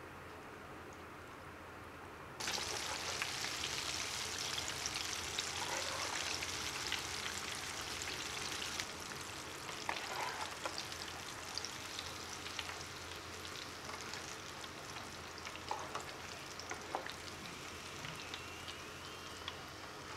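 Salmon pieces deep-frying in hot oil in a pot: a dense sizzle with many small crackles. It gets much louder suddenly about two seconds in, then eases off slowly.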